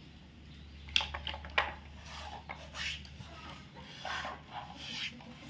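Toy vehicles being handled: scattered light clicks, knocks and short scrapes of the toys against each other.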